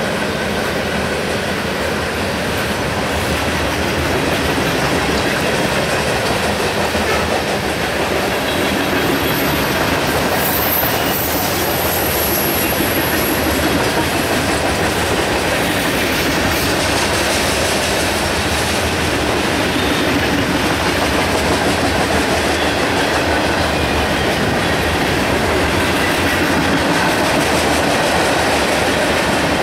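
Freight train of covered hopper cars rolling past close by: a steady rumble of steel wheels on the rails, with a thin high wheel squeal for a few seconds about ten seconds in.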